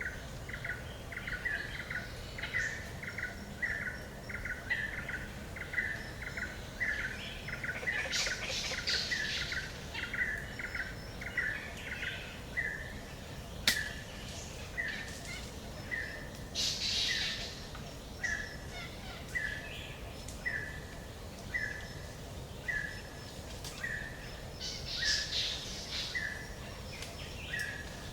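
Forest birds calling: one bird repeats a short mid-pitched note steadily, a little more than once a second, while others break in with brief bursts of higher chirping a few times. There is one sharp click about halfway through.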